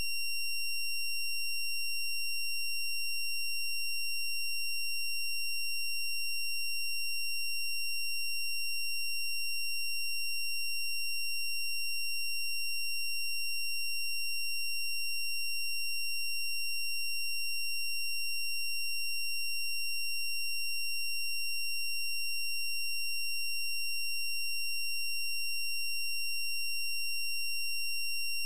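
A steady, high-pitched electronic tone, like a test tone, holding one unchanging pitch throughout with no other sound.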